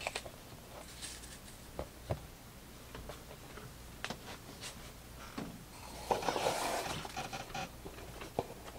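Trading cards being handled and shuffled on a tabletop: scattered soft clicks and card-stock rustling, with a longer, louder rustle about six seconds in.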